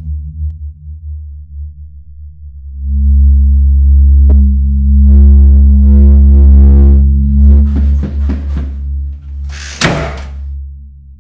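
Deep, low droning rumble that swells about three seconds in and holds, with a humming tone over it for a couple of seconds, then a single sharp bang near the end as the bedroom door slams shut by itself.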